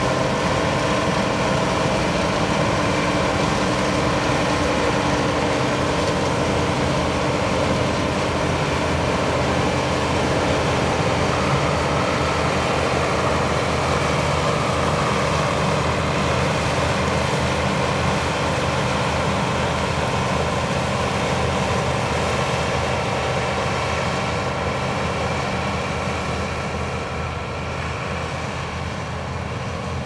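New Holland TX36 combine harvester running steadily while harvesting wheat, its engine and threshing drum making a continuous mechanical drone that eases off slightly near the end.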